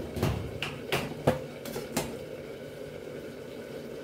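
Clinks and knocks of a glass pot lid being set onto a stainless steel saucepan on a gas stove: about six in the first two seconds, the loudest just over a second in, followed by a low steady hiss.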